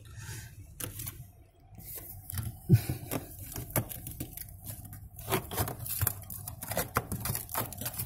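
Hand rubbing and pressing on crinkly aluminium foil over solidly packed ice inside a refrigerator's freezer compartment, giving scattered crackles, clicks and scrapes.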